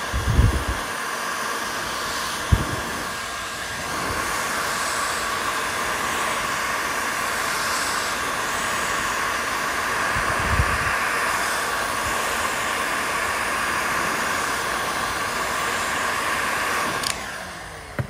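Electric heat gun blowing steadily on a chainsaw's aluminium crankcase, heating the crank bearing pocket so the press-fit bearing will tap out. It shuts off suddenly about a second before the end, with three dull low bumps along the way.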